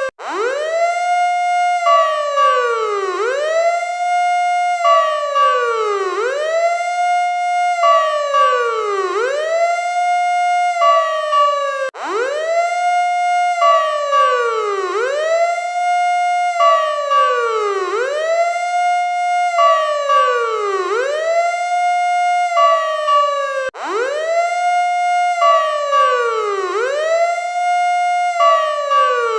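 Electronic emergency-vehicle siren running a repeating pattern: a tone that swoops down and springs back up about every second and a half, mixed with a short steady higher tone. It cuts out for an instant about 12 and 24 seconds in and the same pattern starts over, as a looped recording does.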